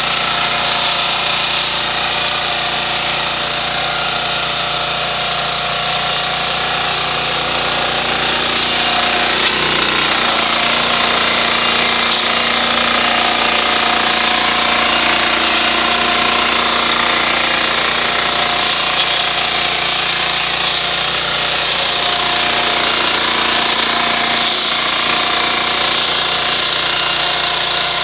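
Small engine of a walk-behind two-wheel tractor running steadily under load while its front mower cuts through dense weeds.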